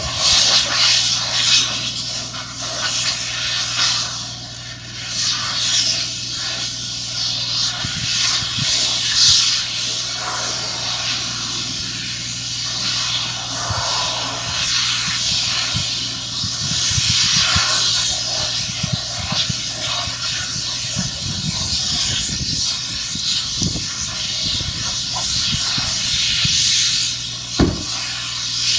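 Steady hissing that swells and fades, over a constant low machine hum, with a few light knocks.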